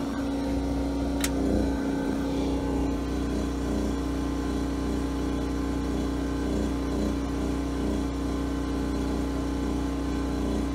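Predator 4000-watt portable generator's single-cylinder engine running steadily under an almost 1,000-watt load, its governor holding the output at about 61 hertz. A single sharp click about a second in.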